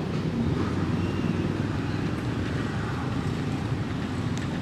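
Steady low rumble of road traffic, vehicle engines running close by.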